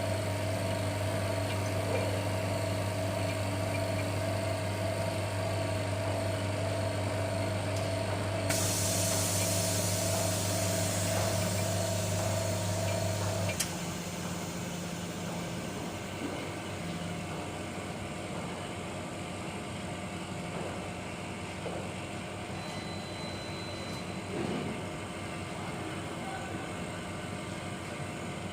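OCA lamination machine running with a steady electric hum; about a third of the way in a hiss of air starts, and about halfway through the hum and hiss cut off suddenly, leaving a fainter steady machine hum.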